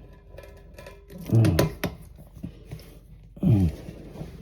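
Two short, strained grunts with falling pitch from a man tightening the water supply line's plastic coupling nut onto a toilet fill valve, with small clicks and taps of handling between them.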